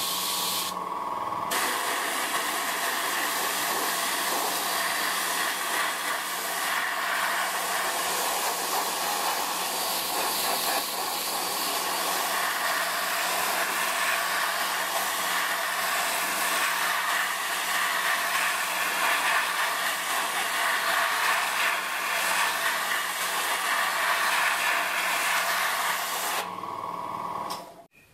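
Airbrush spraying acrylic paint with a steady hiss, over a steady low hum. The hiss drops off briefly about a second in and stops near the end, with the hum cutting off just after.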